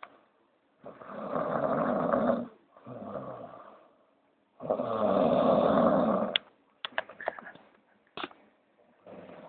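A person snoring heavily in sleep: two loud, long rasping snores, each followed by a softer breath. After them come a scatter of sharp little clicks near the end.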